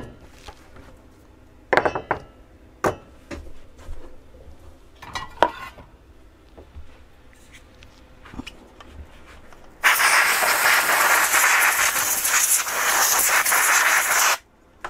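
Metal power-supply chassis and hand tools being handled on a rubber work mat: a series of sharp clicks and knocks. About ten seconds in, a loud steady rushing hiss starts and runs for about four and a half seconds, then cuts off suddenly.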